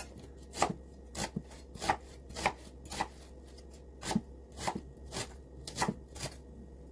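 Kitchen knife slicing a red onion on a wooden cutting board: a steady series of knife strokes, about two a second, each ending in a knock on the board.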